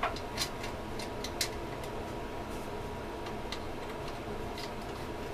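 Scattered light clicks and taps of small tools and parts being handled on an opened welding inverter, over a steady background hum.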